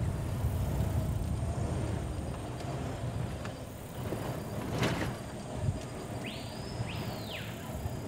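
Vehicle driving along a rough dirt track, a steady low engine and road rumble, with a sharp knock about five seconds in. A short high whistle rises, holds and falls about six seconds in.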